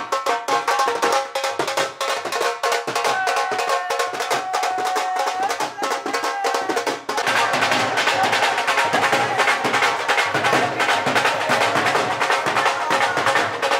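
Music with rapid drumming and a held melody line over it. About seven seconds in it turns fuller, with a deeper part joining.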